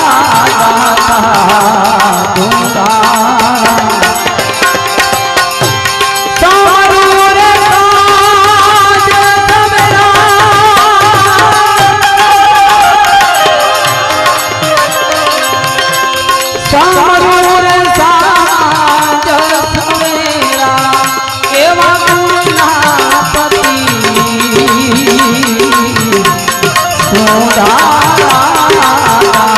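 A Gujarati devotional bhajan: a man sings a wavering, ornamented melody in phrases, accompanied by harmonium and tabla.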